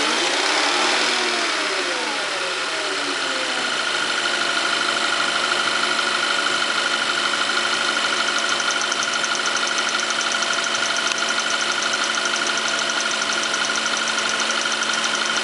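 VW Tiguan's TSI turbocharged direct-injection petrol engine is blipped once, its pitch rising and falling back to idle over the first few seconds. It then idles steadily, and a fast, even ticking sets in about eight seconds in. The owner doesn't take the tick for the normal direct-injection injector sound; it is rpm dependent and goes away above a certain engine speed.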